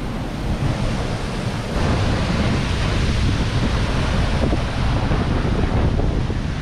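Steady rushing of a snowmelt creek and waterfall, mixed with wind buffeting the microphone in low rumbles. It gets louder about two seconds in.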